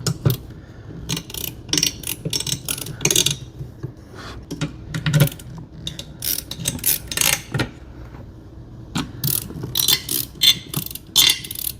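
Hand screwdriver starting a CPU cooler's mounting screws: irregular clicking and short metallic scrapes as the screws are turned a little at a time.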